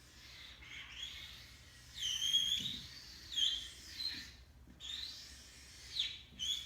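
Marker squeaking against paper in about six short, irregular drawing strokes, the longest lasting about half a second.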